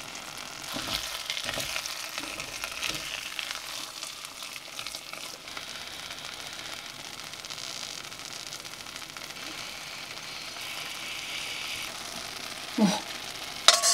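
Rice simmering in a stainless steel pot, sizzling and bubbling as its excess water cooks off. A wooden spoon and tongs stir and knock in the pot in the first few seconds.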